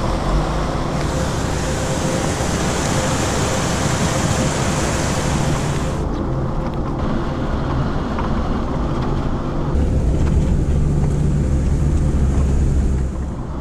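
Land Rover Defender driving on a wet gravel mountain track, heard from inside the cab: a steady engine and road rumble, with a higher rushing noise that fades about six seconds in and returns near ten seconds.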